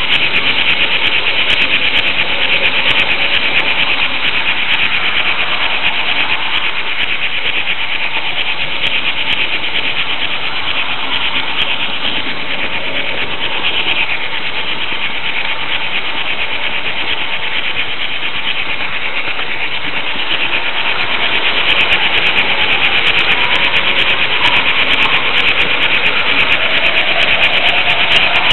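Steady mechanical whirr and rattle of a Märklin H0 model train running along the track, picked up by the camera riding on its flat-bed car. It grows somewhat louder about three quarters of the way through.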